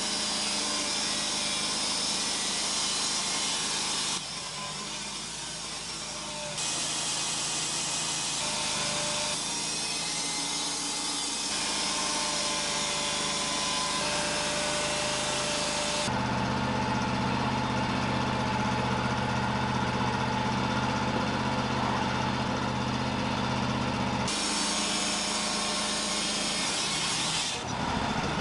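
Wood-Mizer band sawmill cutting a Western red cedar log, its engine running and the band blade sawing through the wood. The sound changes abruptly several times, with a deeper engine hum for a stretch in the second half.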